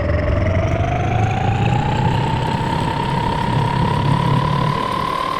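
Metalworking lathe running, a steady machine whine that climbs slowly in pitch over a low hum.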